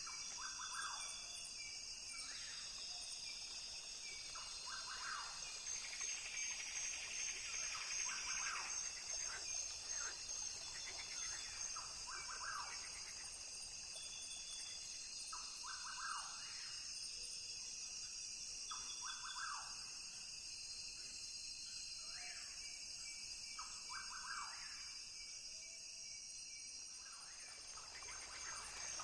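Rainforest ambience: a steady high-pitched chorus of insects, with short animal calls repeating every few seconds.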